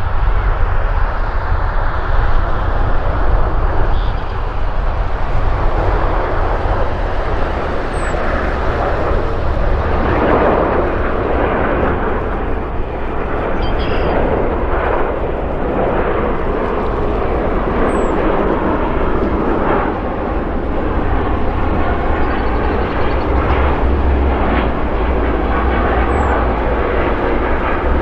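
Jet aircraft engine noise, a dense steady roar that swells about ten seconds in and eases slightly toward the end, over a deep rumble.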